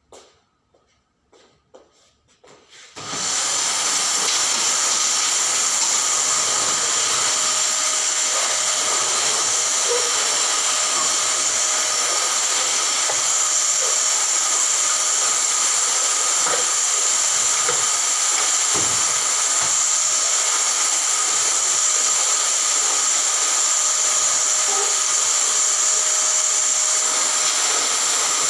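Canister vacuum cleaner switched on about three seconds in, then running steadily with an even hiss while its hose nozzle is worked over an armchair and the floor. A few faint clicks come before it starts.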